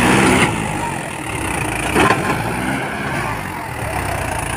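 Swaraj 843 XM tractor's three-cylinder diesel engine running as it pulls a trolley through loose sand, briefly louder at the start and again about two seconds in.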